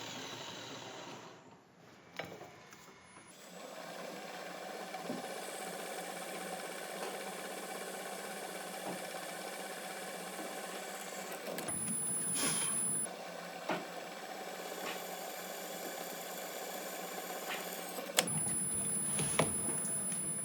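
An electric power tool's motor running steadily, as in grinding or drilling a knife blade, heard across several edited clips. A few light clicks of metal handling are mixed in.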